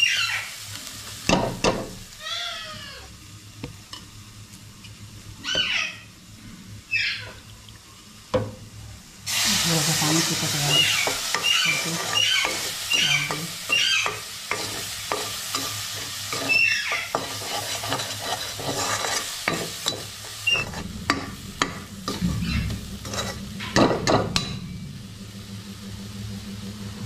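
A steel spoon stirring and scraping chopped onions and garlic frying in oil in a stainless steel kadhai, in repeated strokes. The sizzling gets louder about nine seconds in, and a low hum comes in about twenty seconds in.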